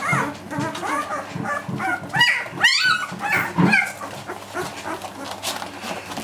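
A litter of 11-day-old puppies whimpering and squeaking, many short cries that rise and fall in pitch and overlap each other. The cries are loudest and thickest about two to four seconds in, then thin out toward the end.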